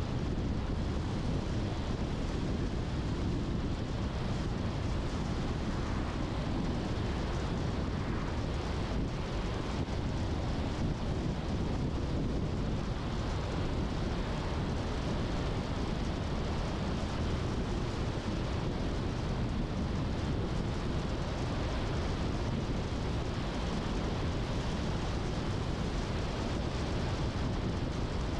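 Steady road noise of a car driving: an even, low rumble of tyres and engine with no changes.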